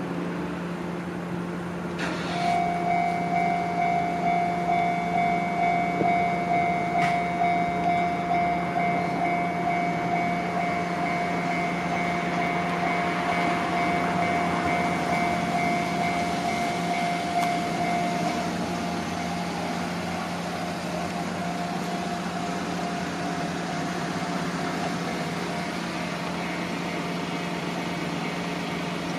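Japanese railway level-crossing warning bell starts about two seconds in, a steady electronic ding repeating about twice a second, and carries on more softly after about eighteen seconds. A steady engine hum runs underneath, and a passing train's rushing noise swells in the middle.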